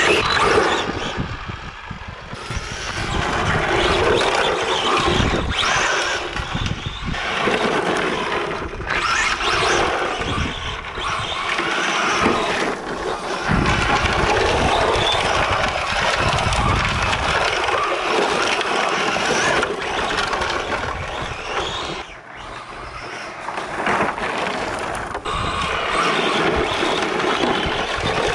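Arrma Infraction 3S BLX 1/8-scale RC car running flat out on loose dirt and gravel. Its 3660 brushless motor whines, and its tyres scrabble and scrape over the gravel. The sound surges and falls away as the throttle is worked, dipping briefly a couple of times.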